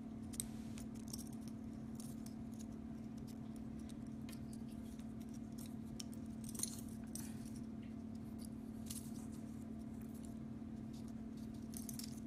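Faint metallic clicking and scraping of a split ring, fishing hook and folded bottle cap being twisted together by hand, with a couple of sharper ticks, over a steady low hum.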